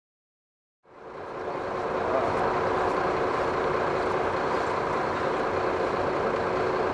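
Tour coach engine idling steadily, fading in about a second in, with a faint steady hum running through it.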